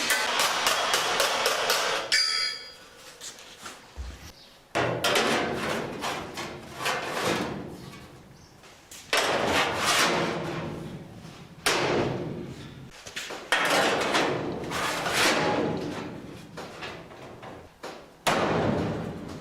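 Hand hammer striking a steel sheet-metal repair panel as it is folded and shaped: a fast, even run of blows about six a second, then after about two seconds several separate noisy sounds that each start sharply and fade over a second or two.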